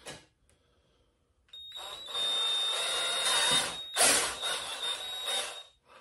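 Cordless Ryobi drill running under load as it bores a mounting hole in a motorcycle's rear bodywork, with a steady high motor whine. It starts about a second and a half in, swells to its loudest around four seconds in, and stops just before the end.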